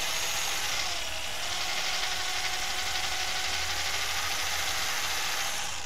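Electric drill running steadily, its bit boring into a snapped steel water-pump bolt on a truck engine; it stops right at the end.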